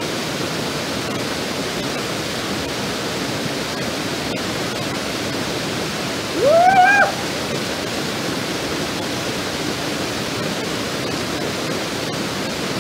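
Waterfall pouring steadily into a pool. About six seconds in, a man gives one short yell that rises in pitch.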